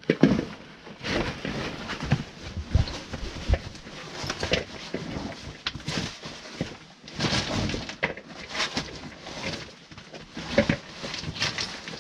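A caver's overalls and boots scraping, shuffling and knocking against rock while crawling into a narrow squeeze, in irregular scrapes with no rhythm.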